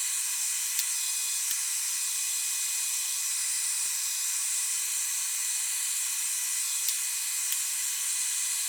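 Steady, even hiss with a few faint ticks and no low sound at all.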